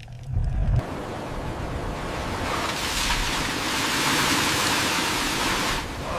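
A low rumble cuts off about a second in and gives way to the steady rushing of ocean water, like surf.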